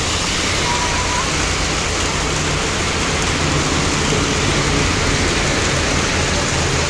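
Heavy downpour of rain on a flooded road and standing water: a loud, steady hiss.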